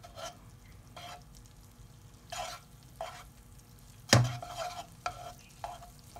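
Butter melting over low heat in a nonstick pan while a plastic slotted spatula pushes it around: short scraping strokes about once a second over a faint sizzle. About four seconds in, the spatula knocks louder against the pan.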